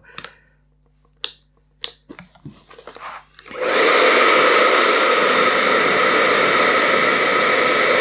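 A few light clicks, then about three and a half seconds in the BaByliss 3Q hair dryer starts and runs steadily: a loud rush of air with a steady whine in it, blowing cold air.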